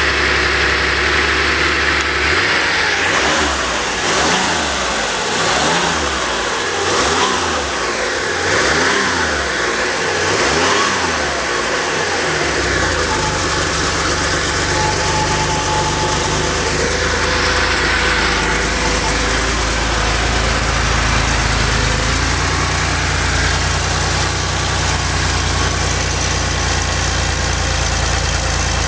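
Porsche 911SC's air-cooled 3.0-litre flat-six, freshly rebuilt on its top end, being revved in a series of quick blips for the first ten seconds or so, then settling to a steady idle.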